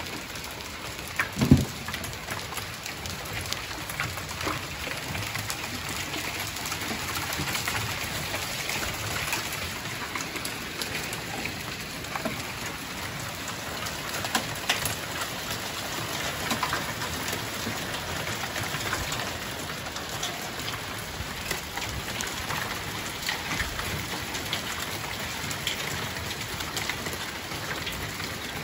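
Hailstorm: hail and rain pattering steadily, with many small sharp ticks of stones striking. A single heavier thump comes about one and a half seconds in.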